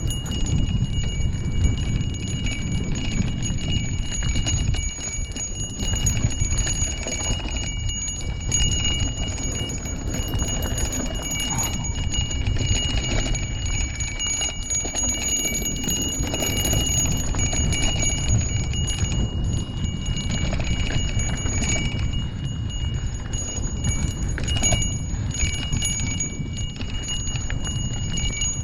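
Handlebar bell rung over and over so its ringing runs on almost without a break, over the low rumble of wind and road noise from riding.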